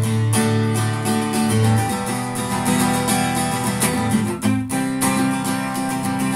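Acoustic guitar strummed in a steady rhythm of chords, with a brief gap in the strumming about four and a half seconds in.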